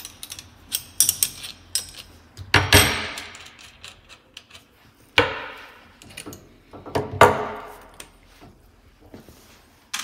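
Adjustable wrench and metal gas fitting being handled, giving scattered sharp metal clinks and knocks. The loudest come about three, five and seven seconds in, each trailing off briefly.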